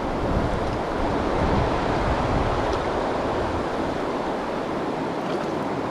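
Steady rush of a fast-flowing river current, with wind buffeting the microphone.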